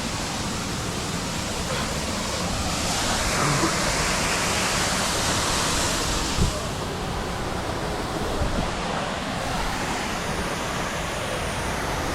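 Steady rushing of water, like a waterfall or surf, a little brighter and louder for a few seconds in the middle. One short soft thump comes a little past halfway.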